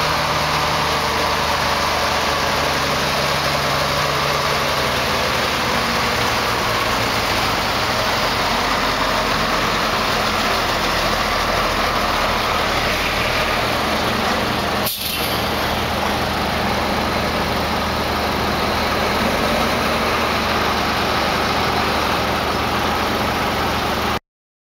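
Diesel engines of classic Volvo F-series trucks running as the trucks drive slowly past one after another, a steady low engine sound with a brief break about two-thirds of the way through.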